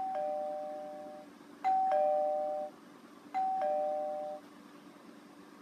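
Two-tone ding-dong doorbell chime rung three times in a row, each a higher note followed by a lower one that rings out for about a second.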